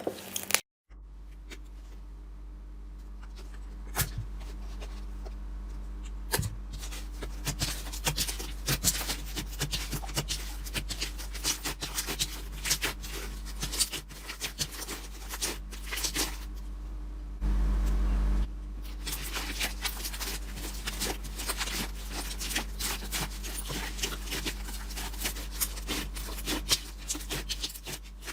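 Slime being handled close to the microphone: a dense, irregular run of small crackles and pops as it is squeezed and pressed, over a steady low hum.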